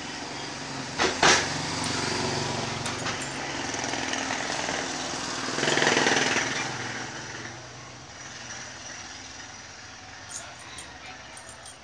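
A small engine running steadily, swelling to its loudest about six seconds in and then fading, with two sharp knocks about a second in.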